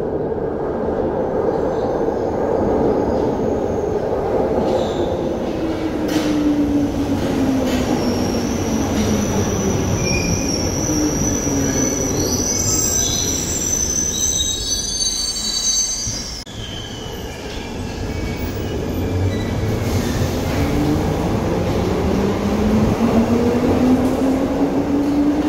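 Glasgow Subway train running into the station: its motor whine falls in pitch as it slows, with high wheel squeal on the curved track about halfway through. After a short lull, a train pulls away with a whine that rises in pitch as it speeds up.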